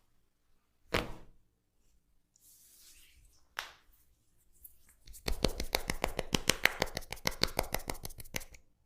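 Hands striking during a massage: two single slaps, then from about five seconds in a fast run of rhythmic tapping strikes, about ten a second for some three seconds, which is the loudest part.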